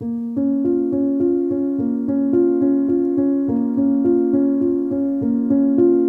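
Background piano music that starts abruptly, a steady pattern of repeated notes about three a second.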